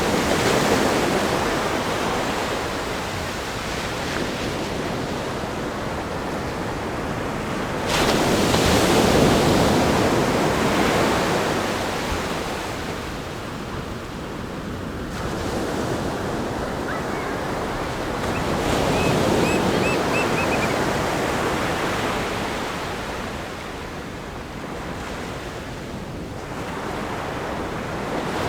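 Ocean surf breaking against a rock groin and washing up a sandy beach: a continuous rushing wash that swells with each wave, hitting hardest about eight seconds in and surging again around the middle.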